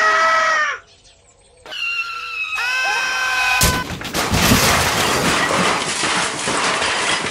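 Cartoon crash sound effects for a bicycle pile-up: a short falling cry, then a high screeching whistle like squealing brakes, then a sudden crash about four seconds in followed by a long, loud clatter.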